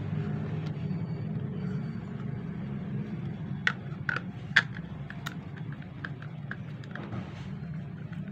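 A run of sharp plastic clicks and taps from handling the end of an HP 80A toner cartridge, two of them louder, over a steady low hum.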